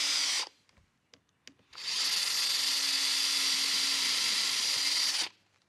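Cordless Festool drill running at a steady speed as it bores holes through a hickory runner into the melamine sled base. It stops about half a second in, a few light clicks follow, then it runs again for about three and a half seconds.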